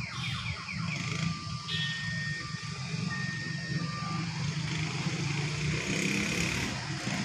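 Car alarm sounding: a rapid warbling tone for about the first second, then long beeps alternating between a lower and a higher pitch until about four seconds in. Under it runs a steady low rumble of engines.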